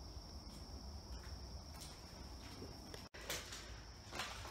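Faint steady high-pitched drone of insects, likely crickets, with quiet footsteps and camera handling underneath; the sound cuts out briefly about three seconds in.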